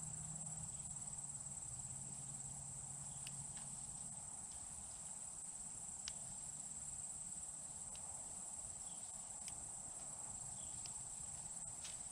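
Crickets trilling in a steady, high, unbroken drone, with a few faint clicks scattered through it.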